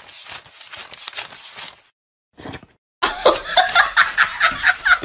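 Paper banknotes flicked one by one as they are counted, a crisp riffle about three times a second. After a short pause a person laughs in quick, louder bursts.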